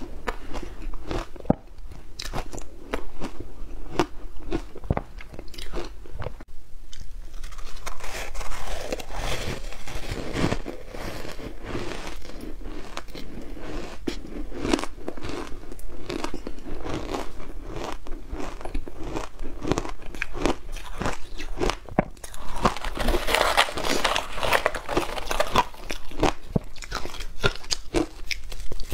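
Close-miked biting and chewing of matcha-dusted ice blocks: a steady run of sharp crunching and cracking, heaviest about a third of the way in and again near the end.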